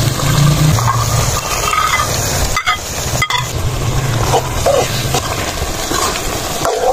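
Shredded boiled meat sizzling as it is dropped into hot ghee and spice paste in an aluminium pot and stirred in. The sizzle breaks off twice, briefly, near the middle.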